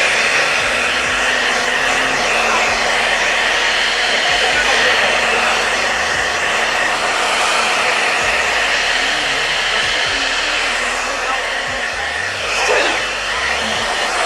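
Hair dryer blowing steadily, a loud even rush of air.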